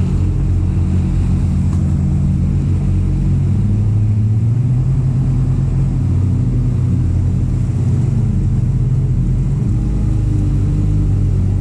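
Jet ski engine running at a steady cruising throttle, a low drone that wavers a little in pitch, over the rush of churned water from the hull and wake.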